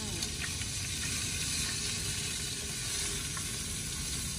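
Fish frying in oil in a pan on a portable gas stove, a steady sizzle.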